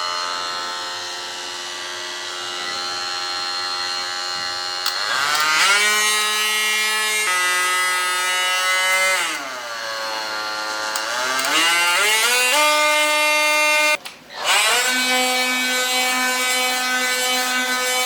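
Cordless oscillating multi-tool fitted with a delta sanding pad, running with a loud, buzzing hum. Its pitch rises and falls several times, as with changes of speed or load. It stops briefly about 14 seconds in and then runs again steadily.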